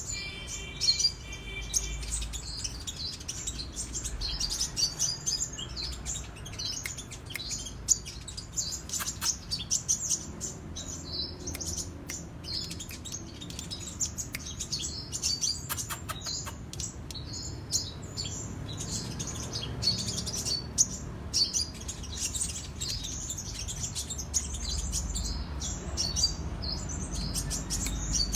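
Kolibri raja sunbird singing non-stop in rapid, high chattering chirps (cetrekan).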